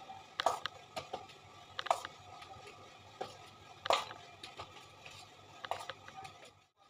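Metal palette knife scraping whipped cream and clinking against an aluminium cake turntable: a few sharp, irregular clicks a second or two apart, with softer scrapes between. The sound drops out briefly near the end.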